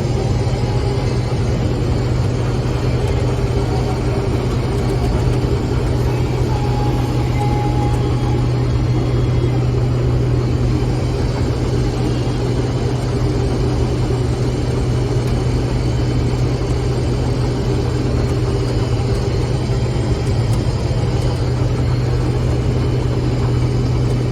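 Steady drone of a vehicle driving along, a constant low engine-and-road hum that holds an even level throughout.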